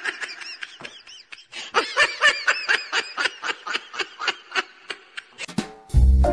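A person giggling in a long run of quick, high-pitched titters, about five a second. Bouncy music comes in near the end.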